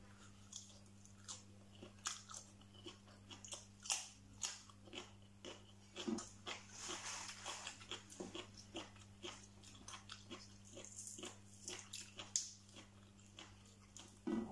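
Close-up eating sounds: a person chewing and crunching mouthfuls of stir-fried instant noodles and fresh salad greens, with many short irregular crunches and mouth clicks. A steady low hum lies underneath.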